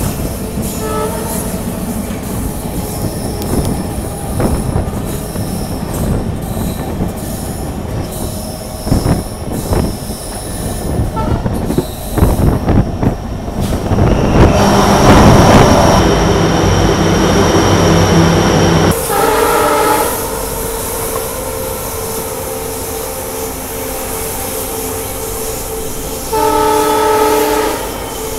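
Passenger train running, heard from an open coach door: steady wheel and rail noise with wind. About halfway through the roar grows much louder for about four seconds as the train passes through a tunnel. Then the WDP-4D diesel locomotive's horn sounds twice, a one-second chord and, near the end, a longer one.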